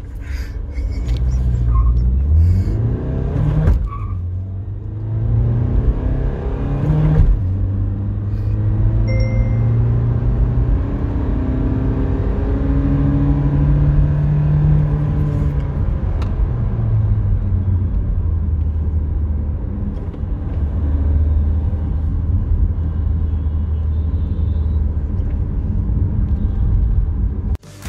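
MG Hector's 1956 cc four-cylinder turbo-diesel engine, heard from inside the cabin, pulling hard from a standstill under full throttle. The revs climb and fall back at a gear change about four seconds in and again about seven seconds in, then settle into a steadier low drone.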